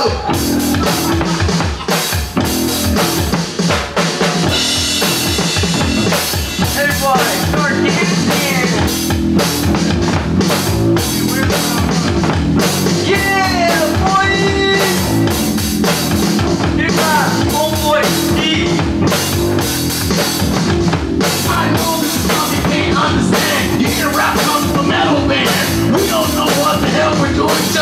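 Live band music: a Tama drum kit keeping a steady beat over a repeating bass line.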